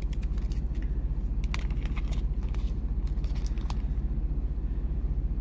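A small plastic bead bag crinkling and rustling, with small clicks, as a glass coin bead is pulled out, over a steady low rumble; the crinkling dies away near the end.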